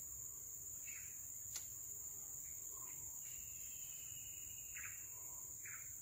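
A steady high-pitched insect drone with a few short bird chirps and a held whistle-like call over it, and a single sharp click about one and a half seconds in.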